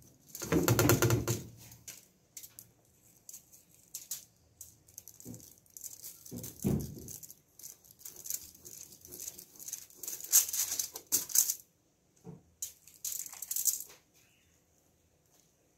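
Aluminium foil crinkling and rustling under hands as dry barbecue rub is pressed onto raw lamb chops on a foil-lined baking tray, in short irregular bursts. A louder, fuller rustle and bump comes about half a second in, with a few soft knocks later.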